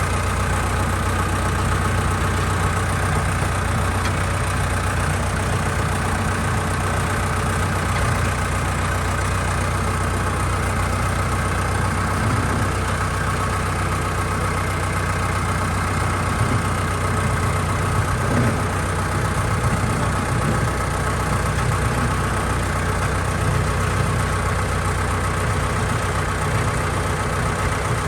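An engine idling steadily, with a constant hum.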